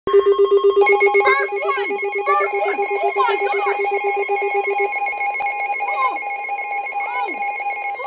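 Several NOAA weather alert radios, Midland S.A.M.E. all-hazards units among them, sounding their warning alarms together for a tornado warning. Overlapping rapid beeping tones at several pitches; the lowest beep stops about five seconds in, and short gliding chirps sound over the top.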